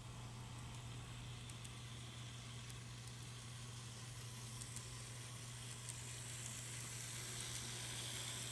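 N-gauge model electric train running along the track: a steady hiss from the wheels on the rails over a low steady hum, with a few faint clicks. It grows a little louder near the end as the train comes close.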